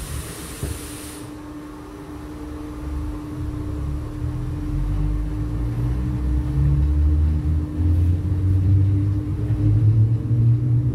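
Inside a Berlin S-Bahn class 485 electric train: a short hiss of air, then the car's low running rumble and a steady hum, growing louder over several seconds as the train gathers speed.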